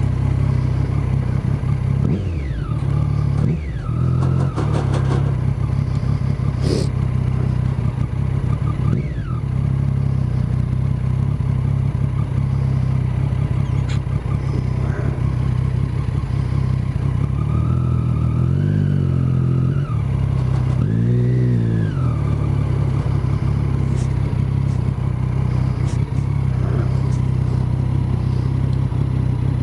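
Triumph motorcycle engine running on the road, revving up and easing off a few times, with rises and falls in pitch around three seconds in and again around twenty seconds in.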